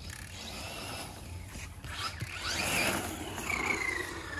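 Radio-controlled truck's motor whining as it is driven, rising and falling in pitch as it speeds up and slows. It is loudest about halfway through as the truck comes close, then the pitch falls steadily near the end.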